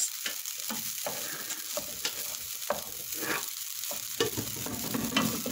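Wooden spatula stirring and scraping fried rice around a stone-coated nonstick pan in quick, irregular strokes, with the rice sizzling underneath.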